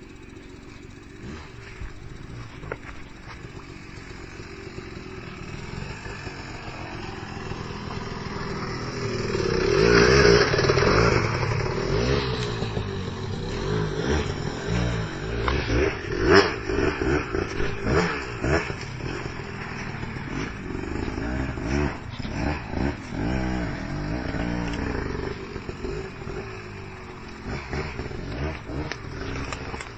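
KTM 300 EXC two-stroke dirt bike engine, growing louder to a peak about ten seconds in, then revving up and dropping back in many short surges as it is ridden, easing off near the end.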